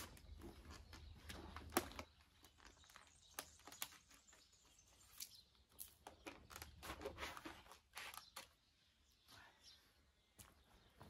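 Near silence with faint scattered clicks and scuffs, one sharper click just under two seconds in, from hands handling a wet plastic roller-shutter panel on concrete.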